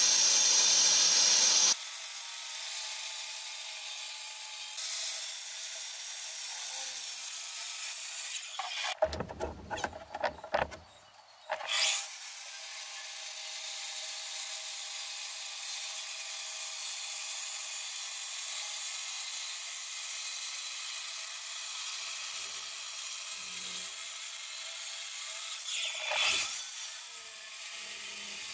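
Handheld concrete cutter grinding a vertical cut through a pebbledash-rendered brick wall: a steady grinding hiss. It is full and loud for the first couple of seconds, then thinner and quieter. There is a short broken patch with a few knocks about ten seconds in.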